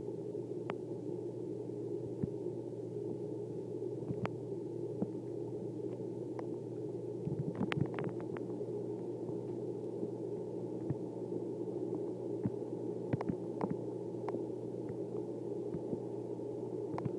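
Steady low hum of an aquarium pump, with scattered short clicks, bunched about eight seconds in and again around thirteen seconds.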